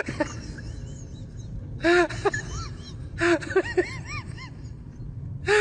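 Dog whining in short, high yelps that rise and fall in pitch, coming in several quick bursts with pauses between them.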